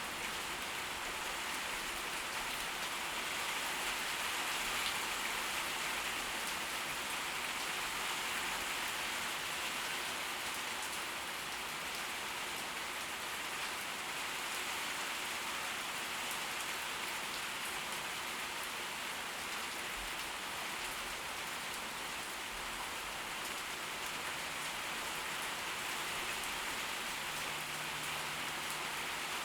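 Steady, heavy tropical-storm rain falling and pattering on surfaces, at an even level throughout.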